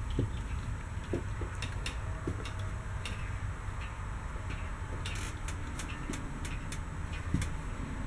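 Handling noise from a handheld camera carried through a travel trailer, with footsteps on its floor: a steady low rumble under scattered light clicks and a few soft knocks.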